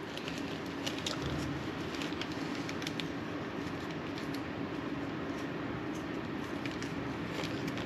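Steady low hum of room noise with a constant tone, and a few faint light clicks of small parts being handled.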